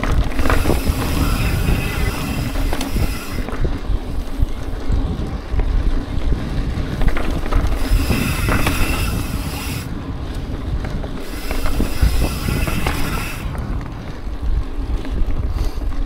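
Wind buffeting the microphone while riding a mountain bike along a dirt trail, mixed with the rumble and rattle of the bike rolling over the ground. Stretches of hiss come and go: about half a second to three and a half seconds in, around eight to ten seconds, and again around eleven to thirteen and a half seconds.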